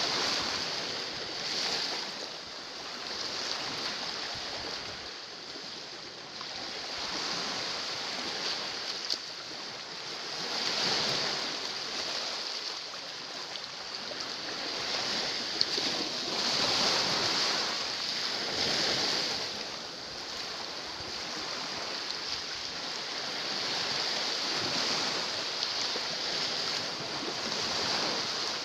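Sea waves washing against rocks at the shoreline, a steady rushing that swells and fades every few seconds. A couple of sharp clicks stand out briefly.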